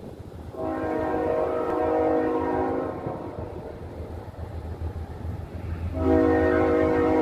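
Horn of an approaching CSX freight train's lead diesel locomotive: one long chord blast, then a second long blast starting about six seconds in, over a low rumble.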